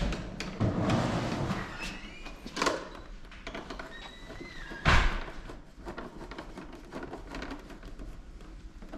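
Plastic motorcycle fairing being pushed and worked onto its mounts by hand. There is rubbing and scuffing in the first couple of seconds, a knock near three seconds, a short squeak, and a louder sharp knock about five seconds in.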